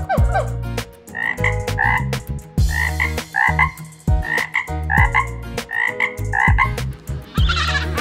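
Tree frog croaking: a run of short calls, often in quick pairs, about two a second.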